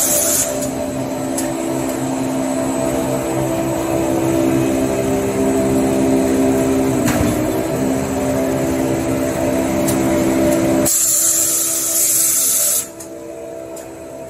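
Toilet paper log rewinder running, a steady mechanical hum of rollers and drives with several steady tones. A loud high hiss comes in about eleven seconds in and cuts off near the end, after which the machine sounds quieter.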